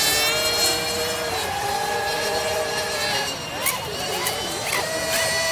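Radio-controlled racing boats running flat out on the water, several high-pitched motor whines overlapping and sliding up and down in pitch as the boats pass.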